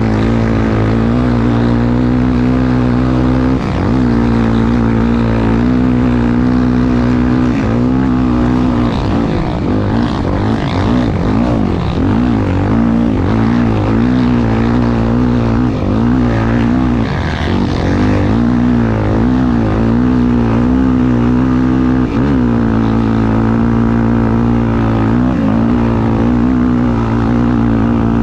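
Honda Tornado 250 single-cylinder motorcycle engine running hard under race load. Its pitch rises and falls again and again as the throttle is opened and closed and the gears change, with several brief drops in revs.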